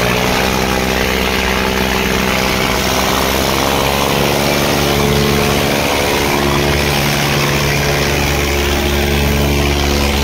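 Diesel tractor engines held at full throttle under heavy load, pulling against each other in a tractor tug-of-war. The engine note climbs at the very start, then holds steady at high revs.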